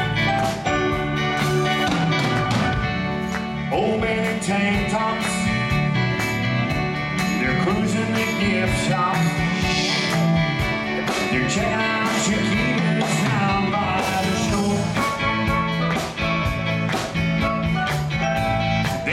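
Live band playing amplified pop-rock: electric guitars, bass, keyboard and drums, with a steady drum beat.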